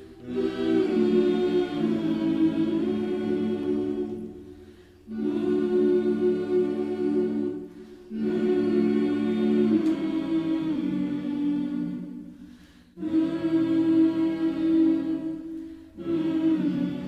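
A choir singing held chords in long phrases, with brief breaks between phrases about every four seconds.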